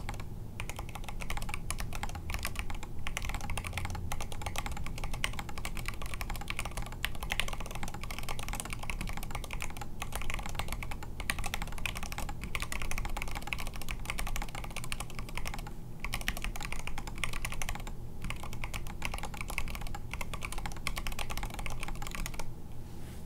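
Continuous fast typing on a foam-lined mechanical keyboard with NK Silk Red linear switches and KAT Space Cadet keycaps: a dense run of key clacks with a few brief pauses between bursts.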